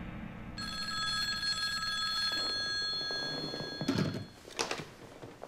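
Black rotary desk telephone ringing, its bell sounding steadily for about three seconds, then stopping as the receiver is lifted off the cradle with a few handling knocks.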